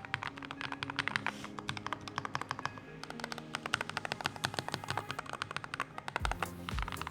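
Fast typing on a Gravastar V60 Pro HE magnetic Hall-effect keyboard: a dense, continuous run of keystroke clicks. Background music plays under it, and a deep kick-drum beat comes in about six seconds in.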